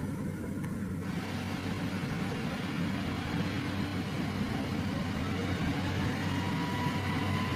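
A vehicle engine running steadily with a low rumble, with a faint whine rising slowly in pitch near the end.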